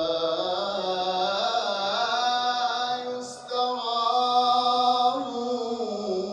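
A man's solo voice chanting an Arabic devotional praise poem, drawing out long held notes that slowly bend in pitch, with a brief break for breath about three seconds in.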